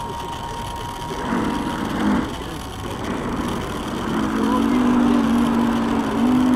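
Small engine of a radio-controlled model boat running, with a steady drone that grows louder from about four seconds in.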